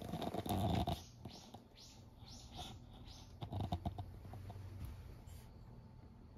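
A bird chirping a quick run of about six short, high calls, faint. Soft scuffs and a few light clicks of steps on gravel and stone come through as well.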